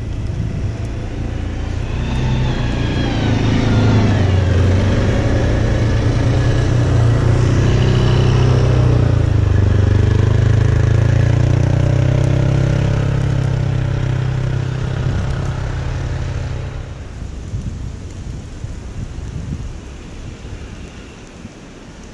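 Engine of an Arctic Cat off-road vehicle running under load, with a rising whine as it speeds up about two seconds in. It stays loud through the middle, then eases off to a quieter steady running about seventeen seconds in.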